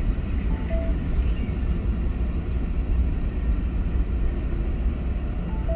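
Double-stack freight train rolling through a level crossing: a steady low rumble of steel wheels on the rails.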